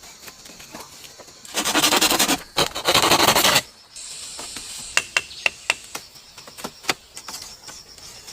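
Two long, loud, rough scraping strokes, followed by light knocks and ticks over a steady high insect hum.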